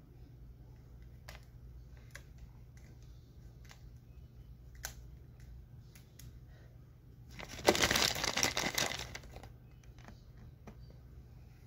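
Hands twisting and wrapping locs close to the microphone: faint rustling and light clicks, then a much louder crinkling rustle lasting nearly two seconds, about eight seconds in.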